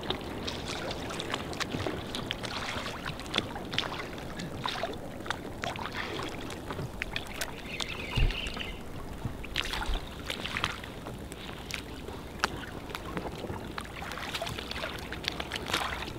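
Small choppy waves lapping and slapping against a small inflatable boat, with many irregular little splashes and one dull thump about eight seconds in.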